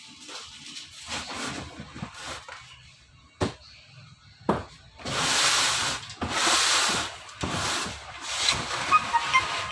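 Packaging being pulled and torn open on a new washing machine: two sharp knocks, then several long rubbing, scraping strokes of cardboard and plastic wrap.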